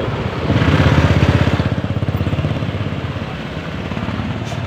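A vehicle engine running with a fast pulsing exhaust note. It swells loud about half a second in and eases off again after a second or so.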